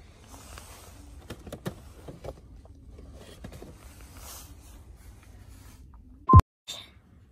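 Low shop ambience and handling noise from a handheld camera, with a few light clicks and knocks. A short, loud beep cuts in near the end.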